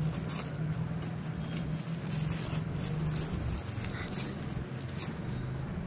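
Clear plastic packaging crinkling and rustling in short irregular crackles as folded cloth is pulled out of it, over a steady low hum.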